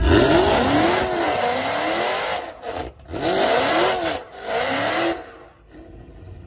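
Dodge Charger widebody's V8 revving hard through a burnout with the rear tyres spinning: one long burst, then two shorter ones, the engine pitch rising and falling in each, before it drops away about five seconds in.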